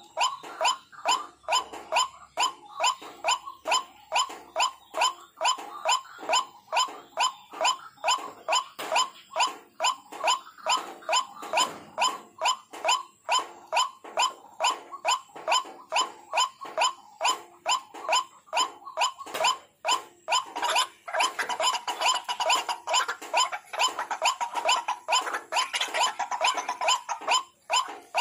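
White-breasted waterhen calling, its note repeated without pause at about two to three a second. The calls grow louder about three-quarters of the way through.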